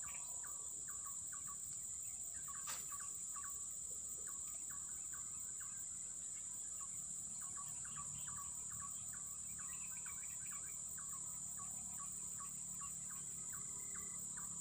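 Steady high-pitched insect drone with a busy run of short chirping calls behind it, and a single sharp click about three seconds in.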